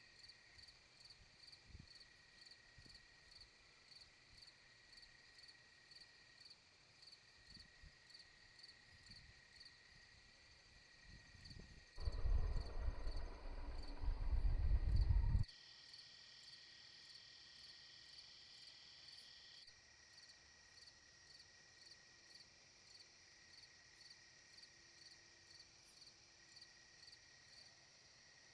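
Insects chirping in a steady, even rhythm, about two high chirps a second. Around the middle comes a loud, low rumble lasting about three seconds, such as wind on the microphone.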